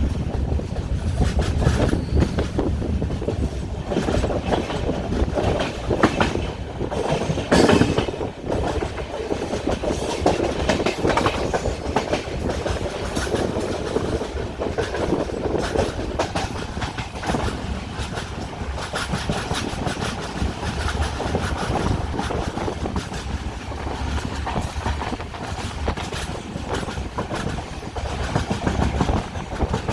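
Passenger train running along the track, heard from on board: a steady rumble with wheels clicking over rail joints, and a louder rush about seven and a half seconds in.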